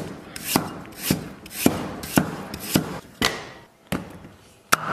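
Chinese cleaver slicing ginger on a thick wooden chopping block: even chops about twice a second, then a short pause and two single sharp knocks near the end.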